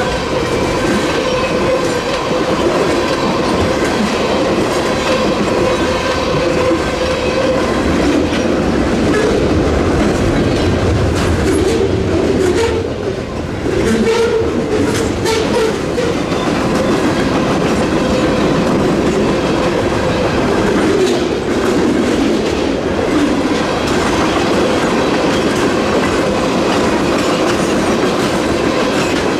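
Freight train rolling past, a steady loud noise of the cars' wheels running on the rails, with a faint steady tone held under it.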